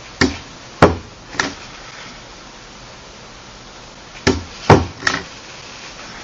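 Chrome ACE desk stapler driving staples through layers of card: six sharp clacks, three near the start and three more about four seconds in.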